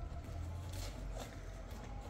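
A metal spatula scooping glowing charcoal and tipping it onto a pot lid, giving a couple of faint scrapes and clinks over a low rumble.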